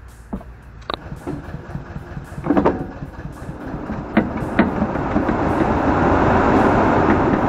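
Tractor-driven orchard air-blast sprayer starting up: the engine runs, and a dense rushing noise builds steadily louder through the second half. Several sharp clunks come in the first few seconds.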